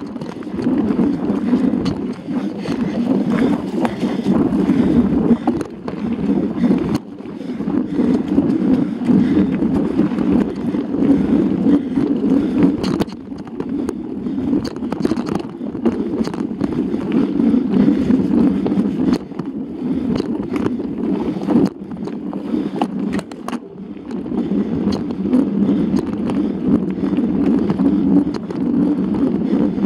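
Mountain bike riding fast down a rough dirt singletrack: wind rushing over the bike-mounted camera's microphone, with scattered clicks and knocks as the bike rattles over roots and rocks.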